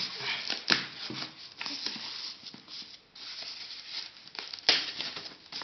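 Packaging rustling and crinkling as a speaker dock is unwrapped and lifted out of its box, with a couple of sharp knocks, the loudest near the end.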